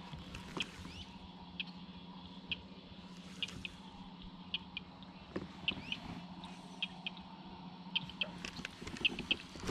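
Faint steady hum of a kayak trolling motor, with short high animal chirps repeating irregularly about every second over it.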